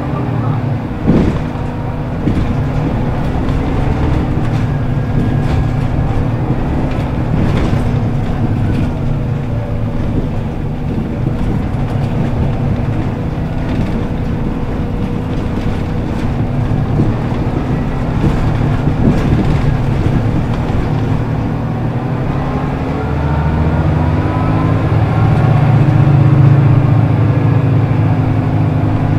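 Scania L94UB city bus's diesel engine running, heard from inside the passenger cabin while the bus drives, with whine from the ZF automatic gearbox and driveline rising and falling. A single knock comes about a second in. Near the end the engine grows louder as the bus accelerates.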